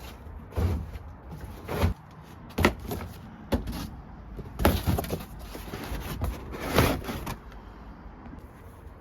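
Irregular clunks and rustling scrapes, about eight in the first seven seconds, from parts and packaging being handled during the unboxing of an electric lawn mower; they die away near the end.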